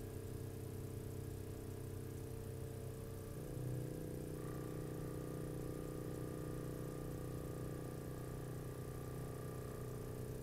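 Mechanical string vibrator driven by a frequency generator, buzzing steadily as it shakes a stretched string. Its hum changes pitch abruptly about three seconds in as the drive frequency is adjusted while hunting for a resonant mode. A faint higher steady tone joins about a second later.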